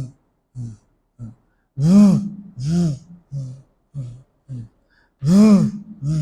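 A man imitating a heart murmur with his voice: a rhythmic string of breathy, voiced 'haaa' sounds that rise and fall in pitch, a few long loud ones among shorter softer ones. It mimics the systolic murmur of mitral regurgitation, louder than the real soft murmur.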